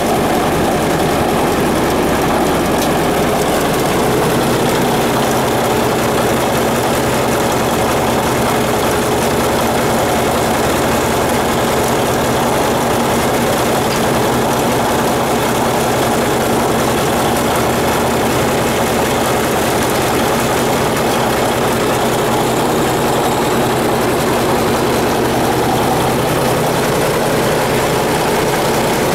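1977 Caterpillar D8K crawler dozer's six-cylinder diesel engine idling steadily.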